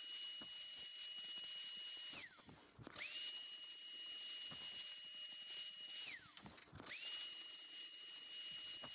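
Handheld electric air blower switched on and off in bursts, blowing air over pistol parts to dry them after ultrasonic cleaning. A steady rush of air with a high motor whine that rises as it spins up and glides down as it spins down: on at the start, off about two seconds in, on again about a second later, off near six seconds, and on again about a second after that.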